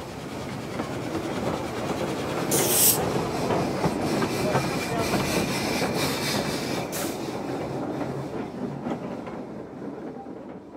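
Jones and Laughlin steam switcher no. 58 and its narrow gauge train running past, with a steady rumbling clatter and two short bursts of hiss, fading out near the end.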